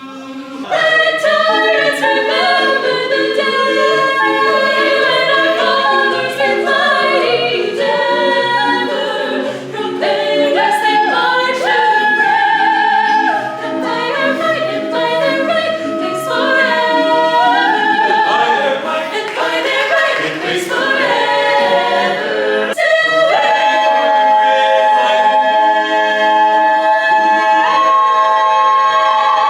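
A cappella choir singing in close harmony without instruments, ending on a long held chord over the last several seconds.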